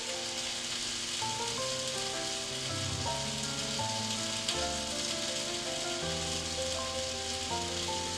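Background music, a simple melody of held notes over a changing bass line, playing over a steady hiss.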